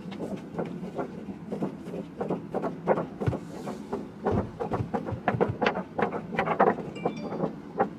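Clear plastic sheeting being handled and shaken out, crinkling and rustling irregularly.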